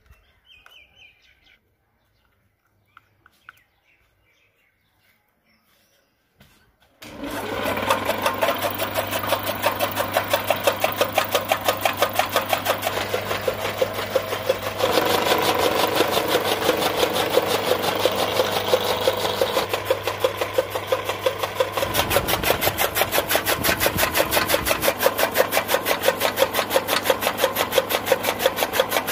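Electric-motor-driven chaff cutter starting up about seven seconds in, then running with a fast, even clatter from its flywheel, blades and feed rollers over a steady motor hum while it chops green fodder.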